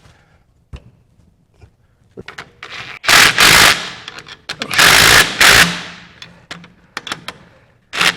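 Impact wrench rattling in short bursts, running down the nuts on a Jeep's front leaf-spring hardware: two longer bursts of about a second each, a short one near the end, and a few light clicks before them.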